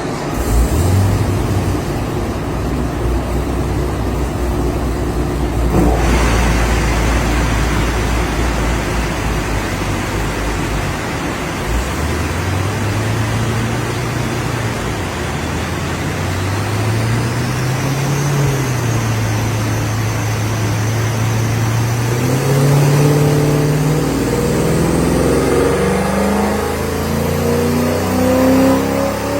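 Cammed 6-litre V8 of a Holden VE SS, with a Stealth camshaft, CNC heads and headers, run hard on a chassis dyno. The pitch climbs with several drops as the automatic shifts up, then rises high near the end before the throttle closes.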